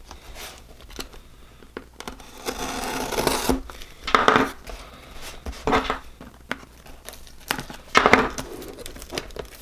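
Folding knife blade slicing through clear packing tape on a small cardboard shipping box, with the box shifted and turned on the table. There is a longer scraping cut early on, then sharper tearing rips about 4, 6 and 8 seconds in.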